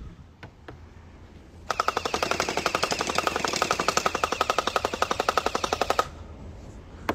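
Electric gel-ball blaster (splat gun) firing a full-auto burst: a rapid, even clatter of shots from its motor-driven gearbox, starting just under two seconds in and lasting about four seconds before cutting off.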